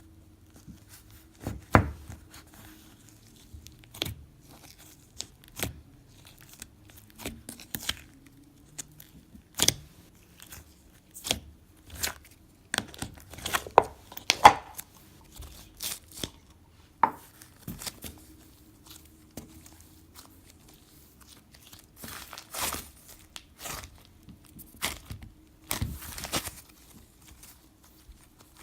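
Thick slime with little foam chunks being squished, stretched and poked by hand: irregular sticky pops, crackles and crunches as air bubbles burst, over a faint steady hum.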